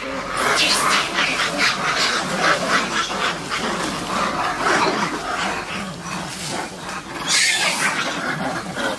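Monkeys calling in a rapid run of short, shrill screeches and chatters, with a louder, harsher burst about seven seconds in.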